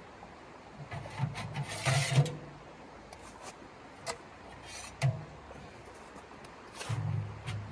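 Metal clanks and scraping from a small steel wood stove and its stovepipe sections being handled and fitted together: a burst of knocks with a scrape about two seconds in, single clicks a few seconds later, and another cluster of knocks near the end.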